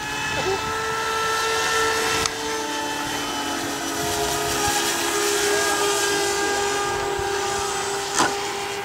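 Electric RC plane motors and propellers flying overhead, among them the Ryder Mk1's Park 480 motor turning a three-blade prop: a steady whine made of several tones that drift slowly in pitch. A short sharp knock comes near the end.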